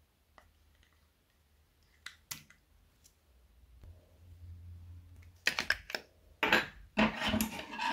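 Hard plastic clicking and crackling as a round white plastic container is gripped and handled. A couple of light clicks come about two seconds in, then a dense run of louder clicks and crackles fills the last two and a half seconds.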